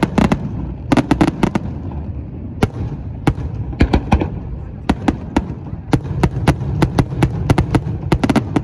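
Aerial firework shells bursting in quick, irregular succession: dozens of sharp bangs, several a second at times, over a continuous low rumble.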